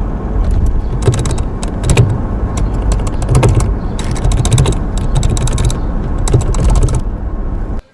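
Rapid clicking and knocking from a Toyota Fortuner's brake pedal, in irregular clusters over a steady low rumble. This is the bad form of the noise, caused by worn, widened free play in the brake pedal.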